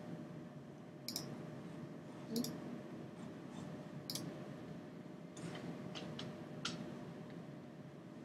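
Several faint, sharp computer mouse clicks at irregular intervals over a low steady hiss.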